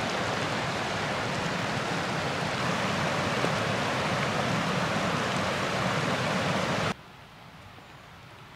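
Rushing mountain creek tumbling over rocks, a steady wash of water that cuts off suddenly about seven seconds in, leaving a much quieter background.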